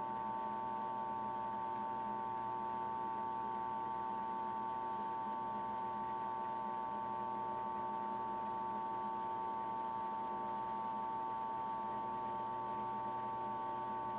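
Electric drill running steadily with a constant high-pitched motor whine, drilling out the broken plastic latch tabs of a center console.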